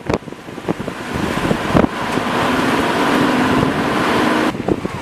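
Strong tornado-driven wind buffeting the microphone in loud gusts, with a steadier, louder rushing hiss and faint hum through the middle couple of seconds as a car passes close by on the highway.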